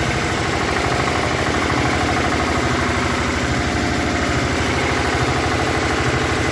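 Rice husk suction machine running steadily, a dense mechanical drone with a rapid low pulsing, while its hose draws husk up from the hopper.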